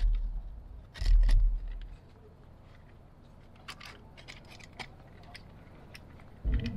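Utility knife blade cutting and snapping at a plastic tab on a speaker mounting ring: scattered small clicks and scrapes. Low handling bumps come just after the start and again about a second in.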